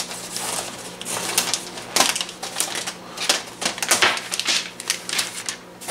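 Polystyrene foam packing blocks being handled and pulled off a boxed monitor: an irregular run of sharp clicks, knocks and short scraping rubs.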